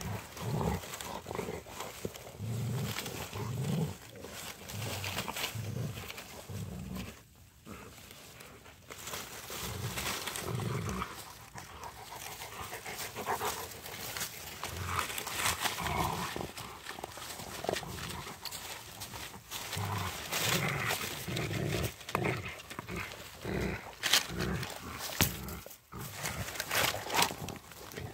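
Rottweilers playing over a stick, making low play growls in short repeated bursts. Twigs and brush crack and rustle as they chew and tug at the branches, with sharp snaps thickest near the end.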